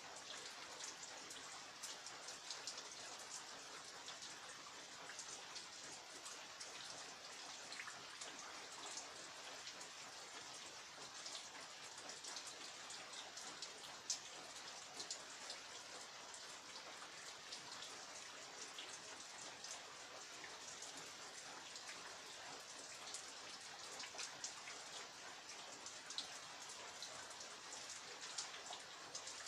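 Rain falling steadily, a dense hiss with many separate drops ticking on hard surfaces and one sharper drop impact about halfway through.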